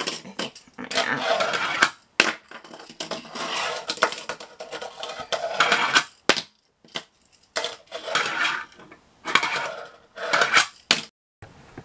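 A 29 mm Tech Deck fingerboard rolling and clattering on a hard desktop. Its small wheels roll in short bursts of about half a second to a second, broken by sharp clacks as the board is popped and lands, over and over.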